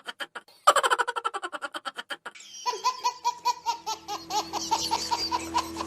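High-pitched laughter in rapid, even pulses: two quick runs in the first two seconds, then a longer laughing passage from about halfway, over a steady hum.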